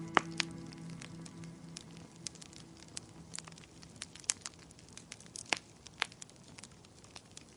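Wood fire crackling, with scattered sharp pops and snaps at irregular intervals. Soft sustained music notes fade out in the first couple of seconds.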